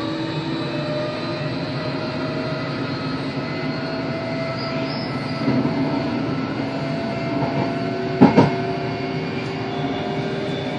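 Passenger train running, heard from inside the carriage: a steady rumble with a faint steady whine over it. Two sharp knocks close together about eight seconds in.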